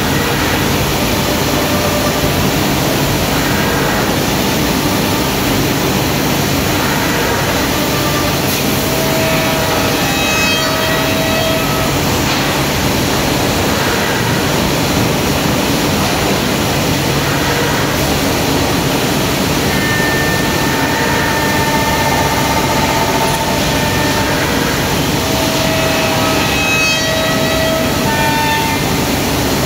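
MDK8511 five-axis CNC machining center's spindle and cutter machining wood: a loud, steady mechanical noise with a low hum underneath, and short whining tones coming and going now and then.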